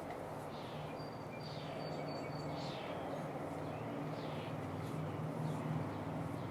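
A bird outside repeating short, descending chirps about once a second, faint behind a low steady hum.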